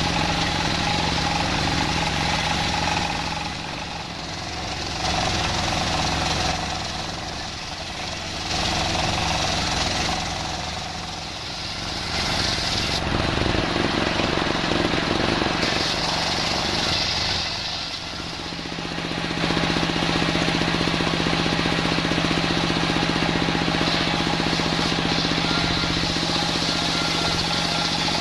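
Homemade circular sawing machine running with a steady low hum. The sound swells and eases every few seconds for the first two-thirds, then holds steady and louder.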